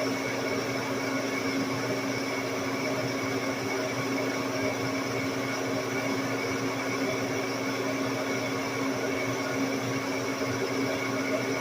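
Large engine lathe running under a heavy roughing cut on a big ring: a steady drive hum with a high whine over it, at an even level throughout.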